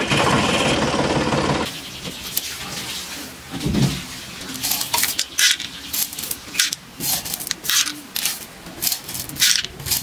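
Small white gravel stones dropped by hand into a toy tractor's trailer bed, each landing as a sharp click or clatter, about two a second and irregular, from about halfway through. It opens with a steady whirring noise that stops after about a second and a half.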